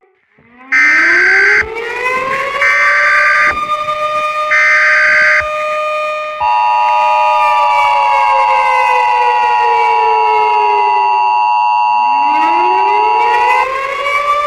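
A civil-defence-style siren winds up and holds its pitch. Three short bursts of Emergency Alert System header data tones play over it, followed by the EAS two-tone attention signal for about seven seconds. Meanwhile the siren winds down and starts winding up again near the end.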